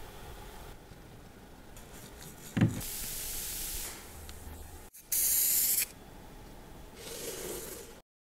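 Aerosol cleaner sprayed in short hisses. A knock comes first, then a hiss of about a second, then a louder, shorter hiss about five seconds in, and a softer one near the end.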